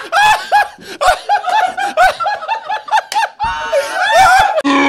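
A man laughing hard: a high-pitched run of quick 'ha' pulses, about four a second, turning into a longer, wheezier stretch near the end.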